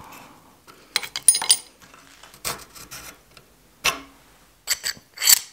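Knife-handle spacers being pried off a steel tang with a thin steel blade: sharp metallic clicks and short scraping clinks in scattered clusters, about a second in, around two and a half seconds, near four seconds and again near the end.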